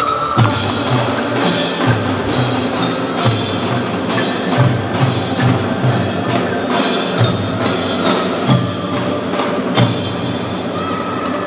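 Children's drum band playing a percussion passage: bass drums beat a steady pattern under sharp snare and wood-block-like clicks, with mallet notes from the marimbas and xylophones. Held melody notes from the mallets return near the end.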